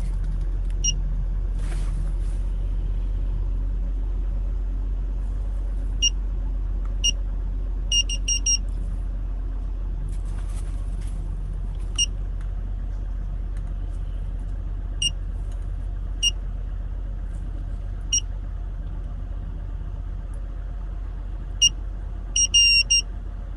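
Handheld OBDII scan tool beeping at each button press, about fifteen short high pips at irregular spacing with a quick run of them near the end, while menus are stepped through to erase stored trouble codes. Under the pips, a steady low rumble of the car's running engine is heard inside the cabin.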